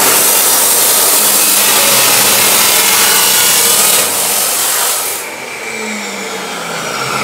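Dekton DK355 2800 W abrasive cut-off saw grinding through a steel square tube, a loud, harsh, hissing cut. About five seconds in the disc lifts clear of the metal and the sound drops to the quieter whine of the saw running free.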